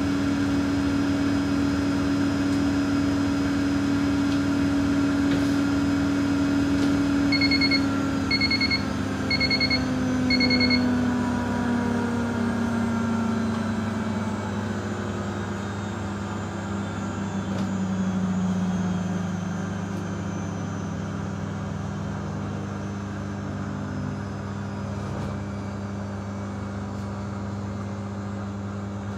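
Miele W2573 washing machine in its final spin: a steady motor whine and drum rush that, about a quarter of the way in, falls in pitch over several seconds as the drum slows, then settles at a lower steady tone. Four short beeps about a second apart sound as the pitch begins to fall.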